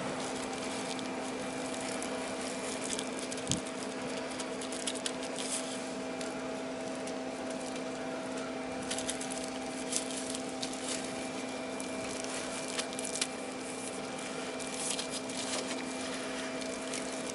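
Plastic packing stretch film crinkling and crackling now and then as it is wound by hand around a stainless steel pipe, over a steady hum.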